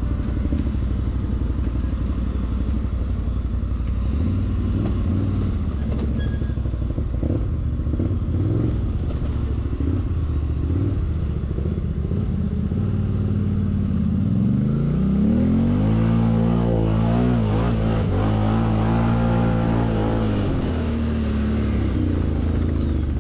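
Can-Am Outlander XMR 1000 ATV's V-twin engine running at low revs over rough trail. About two thirds of the way through the revs climb and waver up and down for several seconds, then drop back near the end.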